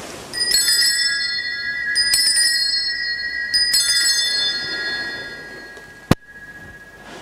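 Altar bell rung three times, about a second and a half apart, each ring fading slowly. It marks the elevation of the chalice at the consecration. A single sharp click comes near the end.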